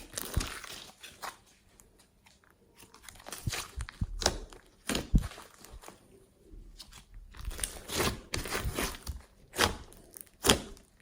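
Clear slime mixed with clay and makeup being pressed and stretched by hand, giving irregular pops and crackling clicks with short quiet gaps between them.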